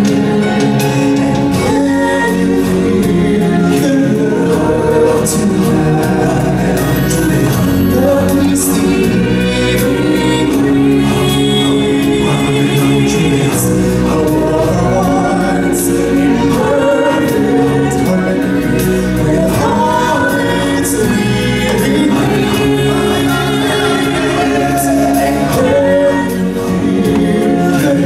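Live stage-show song: singers and a choir-style chorus over instrumental backing, playing continuously.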